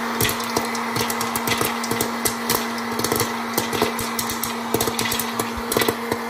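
Hot-air popcorn popper running: the steady hum of its fan motor and rushing air, with rapid, irregular sharp pops and clicks of kernels bursting and popped corn tumbling out into a bowl.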